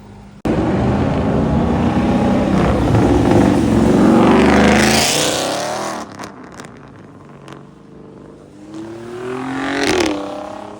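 A car's engine revving hard as it accelerates away, starting abruptly about half a second in and dropping off after about six seconds. Near the end a second car's engine revs up, rising in pitch, as it accelerates past.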